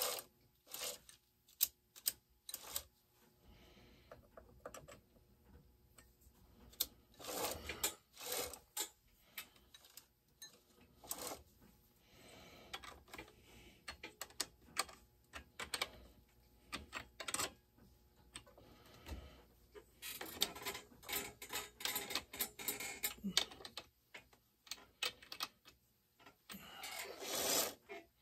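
Hand tools working on a Husqvarna 572 XP chainsaw's bar and chain: scattered metal clicks and clinks, with busier stretches of clicking and rubbing about two-thirds through and near the end.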